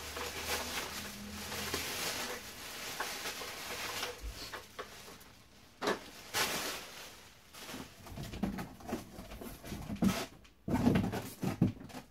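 A clear plastic packaging bag crinkling and rustling as an upright vacuum cleaner is pulled out of it. Then come several separate knocks and thumps, the loudest near the end.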